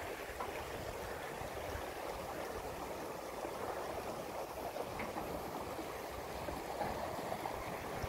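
Steady rushing of a shallow rocky stream, with a mountain bike rolling along the path.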